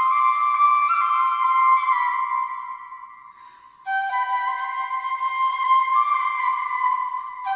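Bansuri (bamboo flute) playing a ringtone melody of held, sliding notes. The phrase fades away about two and a half seconds in, and the tune starts again abruptly just under four seconds in.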